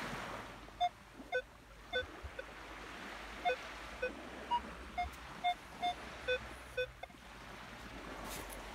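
Minelab Equinox 800 metal detector giving short target beeps, about a dozen in irregular succession, some lower and some higher in pitch, as its coil sweeps over a target in beach sand. A metal sand scoop scrapes into the sand near the end.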